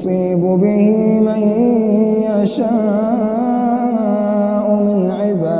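A man's voice reciting the Quran in melodic tajweed style, drawing out long held notes with slow ornamental turns in pitch. There is a short break with a hiss about two and a half seconds in, then the chant carries on.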